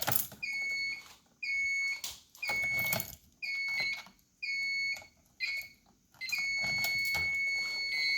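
Fire alarm sounder beeping in a steady pulse of about one beep a second, then switching to a continuous tone about six seconds in. A few faint clicks sound alongside it.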